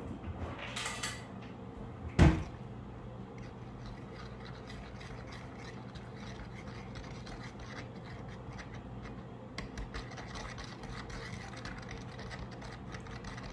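A spoon stirring borax powder into water in a bowl, scraping and ticking against the bowl, with one sharp knock about two seconds in.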